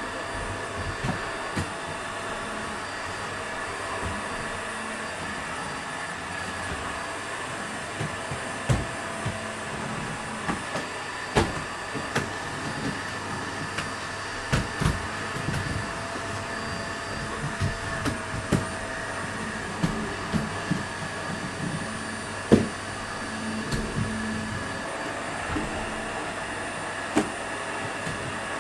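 Toshiba VC-BK750X vacuum cleaner (180 W suction) running steadily during cleaning, a constant whooshing drone with a faint whine. Frequent short knocks and clicks sound over it, the loudest about 22 seconds in.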